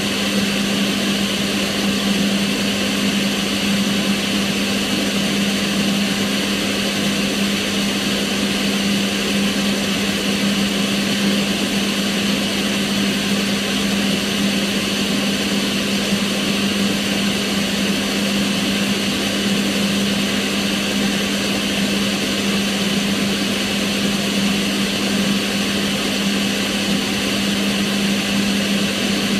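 Kitchen range hood's extractor fan running steadily: an even rush of air over a constant low hum.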